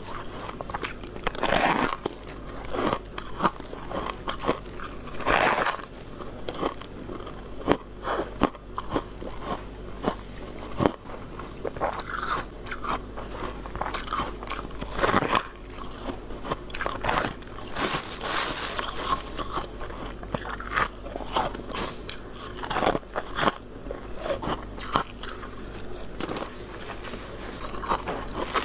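Hard freezer frost being bitten and chewed: a long run of irregular, crisp crunches.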